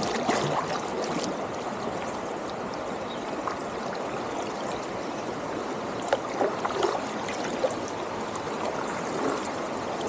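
River water rushing steadily over shoals and rocks, with a few light knocks about six to seven seconds in.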